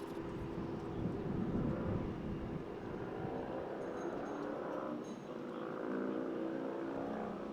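Motor vehicle engine running, a steady low hum with street noise.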